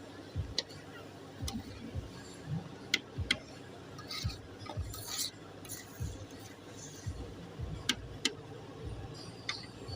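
Metal cooking utensils clinking and scraping against a pan, with irregular sharp clinks, some dull knocks and a couple of short scrapes about halfway through.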